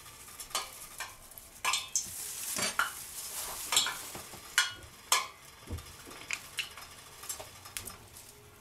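Hot frying oil sizzling around a single test pickle, with sharp irregular pops and crackles over a steady hiss: the oil has reached frying temperature.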